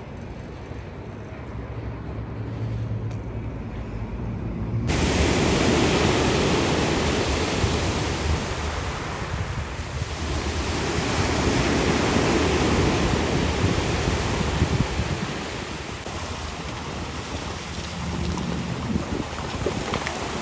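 Rushing noise of wind and Black Sea surf, swelling and ebbing every few seconds, with wind buffeting the microphone. About five seconds in it jumps suddenly louder.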